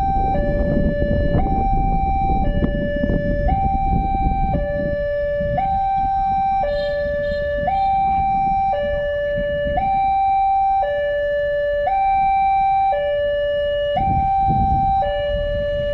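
Railway level-crossing warning alarm sounding a two-tone high-low chime, each tone held about a second and repeating evenly: the signal that a train is approaching and the barriers are down. A low rumble runs beneath it, strongest in the first few seconds and again near the end.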